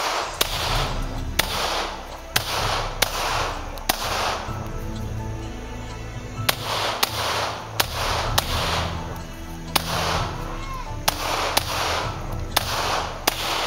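A string of Glock 17 9mm pistol shots, about a dozen and a half, many fired in quick pairs about half a second apart, with a pause of about two seconds near the middle; each shot is followed by a short echo.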